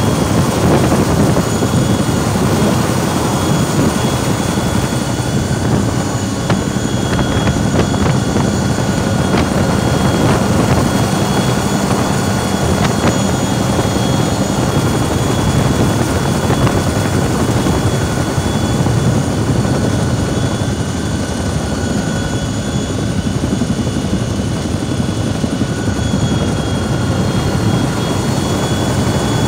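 Firefighting helicopter running close by: a loud, steady engine and rotor noise with a high steady whine over it.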